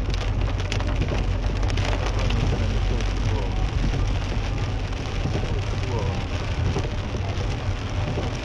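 Heavy rain falling on a Mercedes-Benz C-Class's roof and windscreen, heard from inside the cabin, over a steady low rumble of the car's engine and tyres on the wet road.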